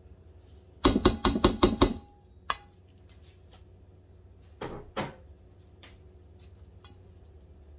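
Kitchen bowls and a spatula knocking: a fast run of about six knocks with a short ring, as softened cream cheese is knocked out of a glass bowl into a stainless steel mixing bowl. Two softer knocks follow a few seconds later.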